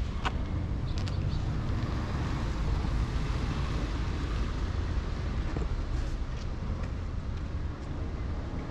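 Steady low outdoor background rumble with a few faint short clicks.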